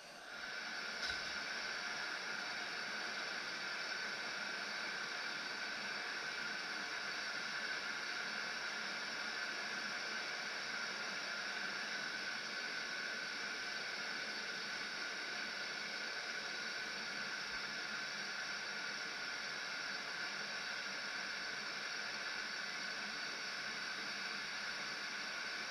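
Gas torch flame hissing steadily, switched on about half a second in with a small click, heating a knife blade from the spine.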